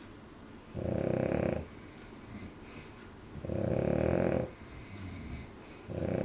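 French bulldog snoring: three loud snores about two and a half seconds apart, the last starting near the end, with quieter breathing between them.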